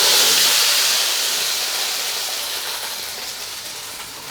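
Ground black urad dal and rice batter poured into hot sesame oil in a large pan, sizzling with a loud hiss that slowly dies down.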